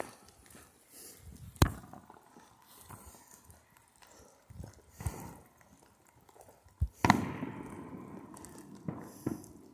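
Scattered firecracker and fireworks bangs going off at uneven gaps, about six sharp reports in all. The loudest comes about one and a half seconds in, and a double bang around seven seconds in is followed by a long rumbling echo.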